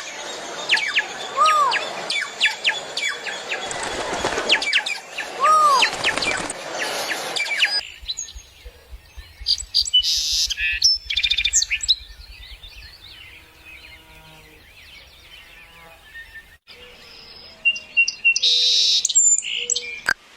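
Birdsong from several birds: a dense chorus of chirps and whistles, with a repeated arching whistled note, then sparser calls after an abrupt change about 8 seconds in, and another change near the end.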